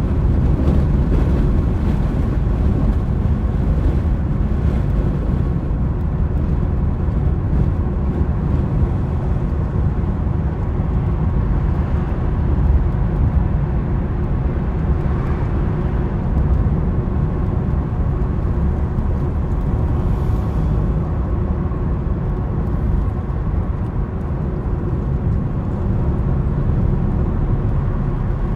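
A car being driven: steady low road and engine rumble, with no sudden sounds.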